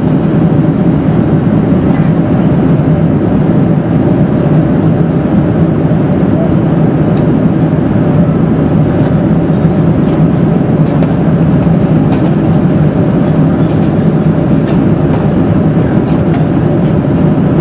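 Steady in-flight cabin noise of a Boeing 747-400 with General Electric engines: a continuous low drone of engines and rushing air, heard inside the cabin at a window seat.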